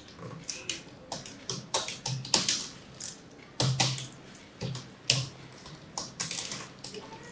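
Typing on a computer keyboard: irregular keystroke clicks, several a second, a few sharper and louder than the rest.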